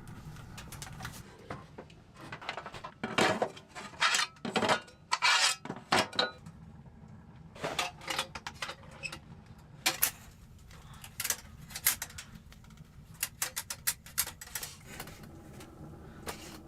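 Cookware and metal utensils clinking and scraping in a string of short, sharp strokes, over a steady low background noise.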